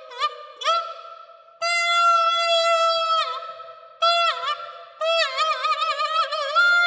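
Clarinet mouthpiece and barrel played on their own. It sounds a few short squawked notes that each bend down in pitch, then a long held high tone from about a second and a half in that sags down at its end, more short bent notes, and a quickly wavering, warbling tone near the end that rises into a held note.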